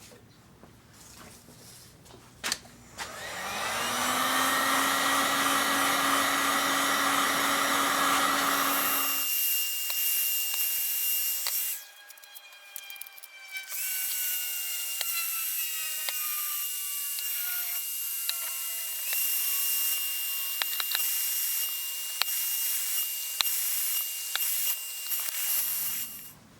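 Small high-speed power tool motor spinning up about three seconds in and running steadily, then, after a brief drop, running again with a rasping cutting sound on wood and its pitch slowly sagging under load, with scattered clicks.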